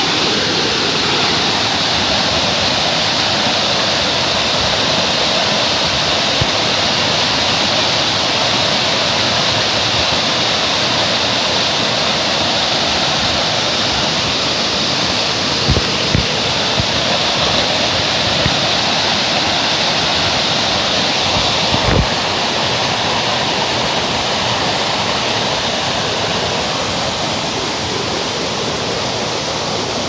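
Waterfall pouring over rock ledges into a shallow pool: a steady, loud rush of falling and churning water. A few brief low thumps come about halfway through and again a few seconds later.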